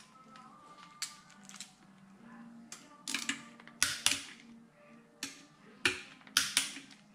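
Ratchet-head torque wrench working the crankcase bolts of a Ducati Monster 659 engine: short runs of sharp metallic clicks, a few at a time, every second or so.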